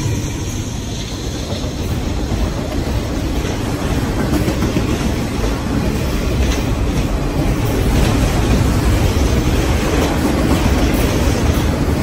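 Freight train's autorack cars rolling past close by: a steady rumble of steel wheels on rail, with scattered clicks as wheels cross rail joints.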